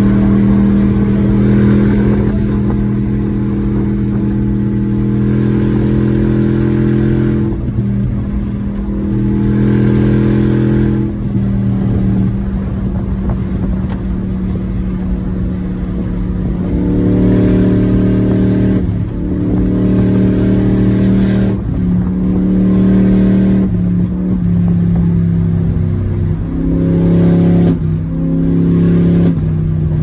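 BMW 745's V8 engine pulling at highway speed, heard from inside the cabin over tyre and road noise. Its steady hum swells and eases every few seconds as the throttle is worked, and its pitch drops near the end.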